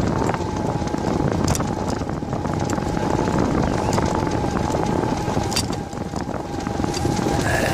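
Riding a bicycle along a sidewalk: a steady rush of wind on the microphone and rolling noise, with scattered sharp clicks and rattles from the bike and a steady hum.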